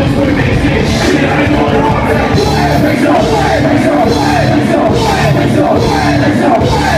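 Loud live rock-rap music from a concert PA: heavy drums and bass with shouted, sung vocals over it.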